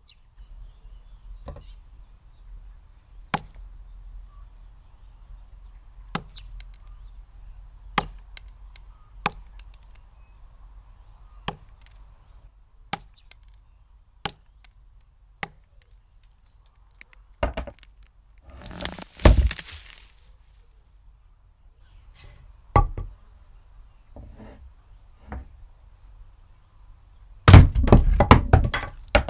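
Axe chopping wood: sharp single strokes every one to two seconds, then a longer cracking crash with a heavy thud about 19 seconds in, as of a tree breaking and falling. A few more chops follow, then a quick flurry of loud strikes near the end.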